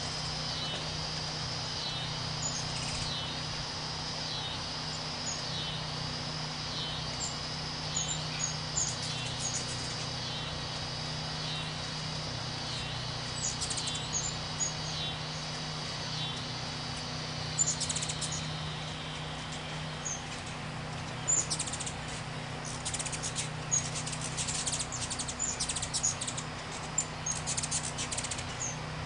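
Ruby-throated hummingbirds giving short, high chip notes around a feeder, breaking into dense chattering bursts in the last third. A steady repeated call, about one a second, runs beneath for the first two-thirds, over a constant low hum.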